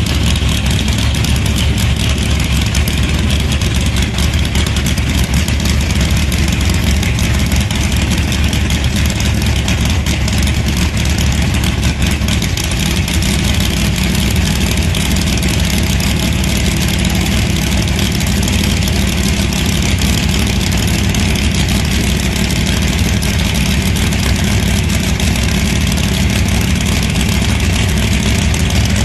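No-prep drag car's race engine idling loudly on the starting line; its note changes and fills out lower down about twelve seconds in.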